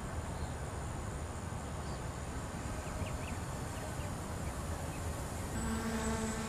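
Distant drone of a small RC flying wing's twin electric motors and propellers, under a steady low rumble of wind on the microphone; about five and a half seconds in, a clearer steady pitched hum comes in as the aircraft draws nearer.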